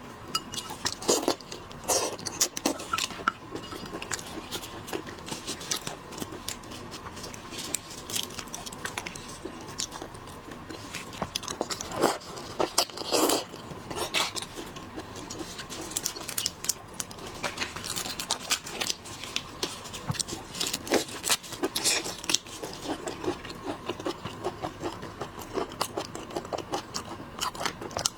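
Close-miked seafood eating sounds: shellfish being handled, cracked and chewed, heard as many irregular crackles, clicks and crunches. A faint steady hum sits underneath.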